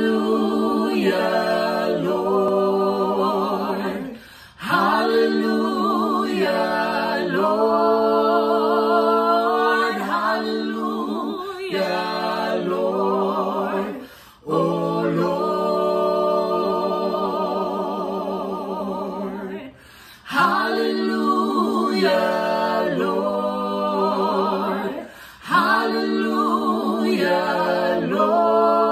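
Small a cappella vocal group, two women and a man, singing a slow praise song in close harmony with no accompaniment. The held notes carry vibrato, and the singing comes in phrases of a few seconds with brief breaths between them.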